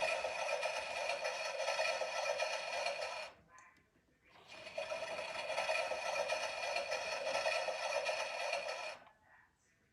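Miele washing machine working in two spells of steady mechanical noise, cutting out about three seconds in, starting again a second later and stopping about nine seconds in.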